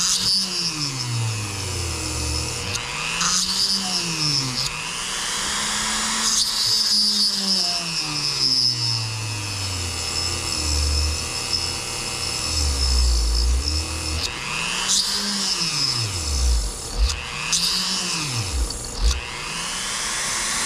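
Small electric drill run at slow speed, its motor pitch rising and falling over and over as the speed is eased up and down, while a small bit drills a hole in an OTF automatic knife part; it is kept slow so the bit doesn't burn up.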